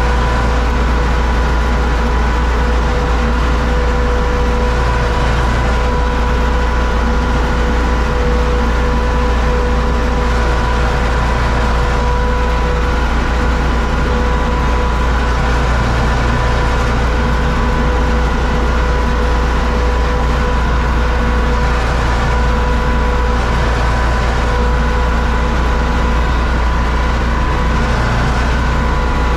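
A UTB Universal 650 tractor's diesel engine running steadily under load, heard from inside the cab, while it pulls a Zmaj Zemun 223 corn picker through the harvest. A steady whine sits over the low engine sound throughout.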